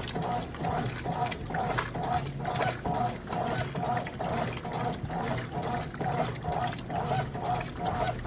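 Brastemp Clean washing machine agitating a load in water, a steady back-and-forth of about two strokes a second, each stroke carrying a short motor whine over the sloshing of the water.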